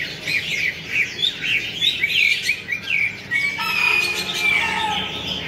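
Birds chirping: a busy stream of short, quick chirps, with a longer, harsher call from about three and a half seconds in.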